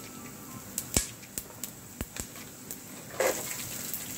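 Oil sizzling and crackling in a pot as peanuts, dal and mustard seeds fry with freshly added carrots, with scattered sharp pops, two stronger ones about one and two seconds in. The sizzle swells louder a little after three seconds.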